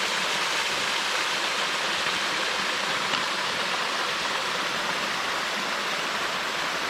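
Small waterfall splashing steadily over rocks, a constant rushing of water.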